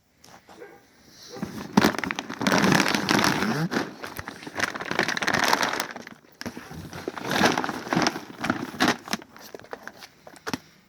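Packaging being opened and handled: crinkling and rustling with sharp crackles, in two bouts of a few seconds each.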